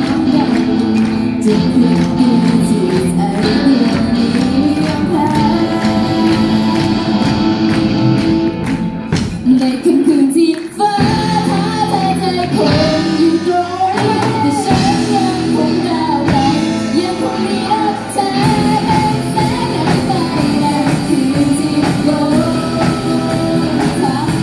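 Live rock band playing: sung vocals over electric guitars, bass and drums. The band briefly drops out about ten seconds in, then the singing comes back clearly on top.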